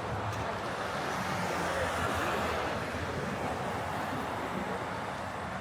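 City street traffic noise: a steady wash of passing vehicles, swelling slightly about two seconds in as a vehicle goes by.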